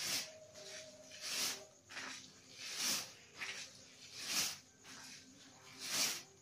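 Plastic raffia strands rustling as they are twisted by hand into a whip cord: a soft swish about every one and a half seconds.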